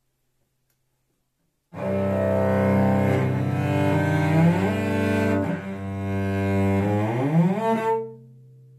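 Solo cello, bowed, playing the frog's theme from a children's opera. It starts after about two seconds of silence, with sliding notes that imitate a frog's ribbit, and ends in an upward slide to a held note that rings out.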